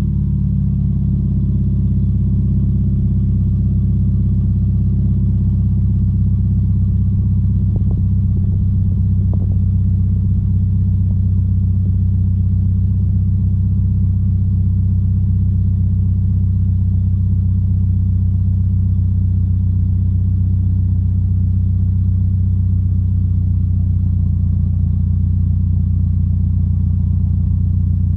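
Toyota GT86's 2.0-litre flat-four boxer engine idling steadily through a Megan Racing aftermarket exhaust, with a deep, even exhaust note after a cold start.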